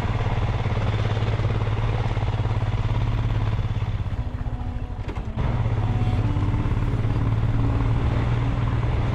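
Motorcycle engine running steadily. It eases off briefly about four seconds in, then picks up again about a second later.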